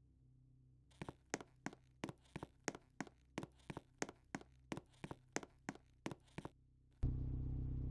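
A quick run of sharp taps or clicks, about three a second, for some five seconds. Near the end a much louder steady noise starts suddenly.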